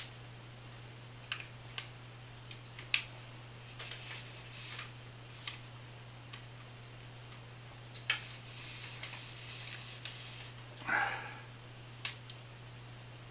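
Scattered light clicks and taps of small parts and hand tools being handled on a workbench, with a few soft scrapes and a short rustle near the end, over a steady low hum.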